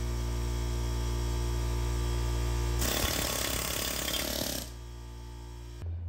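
Metallic scraping and rattling for about two seconds in the middle, as a Club Car golf cart rear axle shaft is drawn out of its axle tube. It sits over a steady machine hum that stops abruptly near the end.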